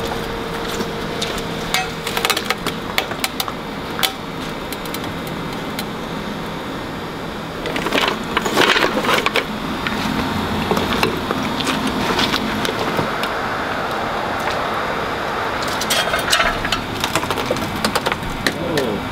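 Scattered metal clicks and clanks from a hydraulic floor jack and jack stands being set and worked under a car, with busier bursts of rattling knocks about eight seconds in and again near the end.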